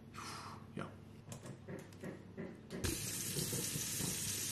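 A few light clicks and knocks, then about three seconds in a burger patty starts sizzling in a hot frying pan on a gas burner, a steady hiss.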